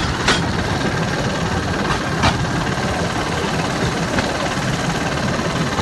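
Battambang bamboo train (norry) running along the rails: a steady drone and clatter from its small engine and bogie wheels, with a thin steady whine. Three sharp clacks come about two seconds apart as the wheels hit rail joints.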